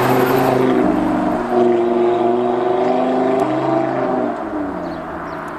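2017 Audi TT RS with its sports exhaust driving past and pulling away up the road, its turbocharged five-cylinder engine note fading near the end.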